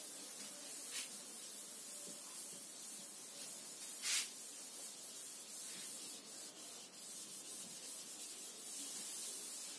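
Chalkboard duster rubbing across a chalkboard, erasing chalk writing: a faint, steady rubbing, with a louder swipe about four seconds in.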